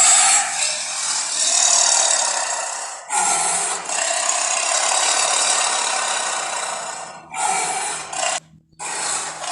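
Saber-toothed tiger sound effects: harsh, raspy growling in a run of long calls, a few seconds each, broken by short pauses.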